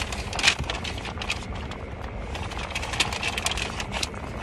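Close-up chewing and lip-smacking while eating a raw guava: quick, irregular clicks and crackles, the sharpest about half a second in, over a low steady hum.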